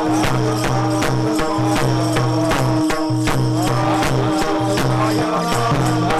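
Devotional kirtan music: hand cymbals and drum strike a steady beat over a held drone.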